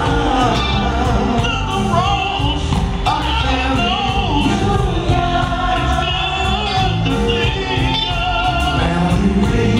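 Live soul music: a male vocal group singing into microphones over a band with keyboards and electric bass.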